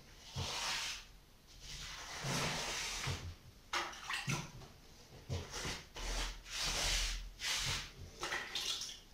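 Clay-and-sand mortar being smeared and worked by hand over a cracked cookstove top. It makes a string of wet, scraping strokes, irregular and about one a second.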